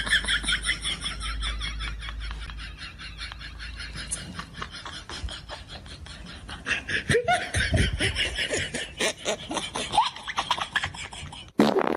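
People laughing, a long run of rapid laughs that grows louder again about seven seconds in.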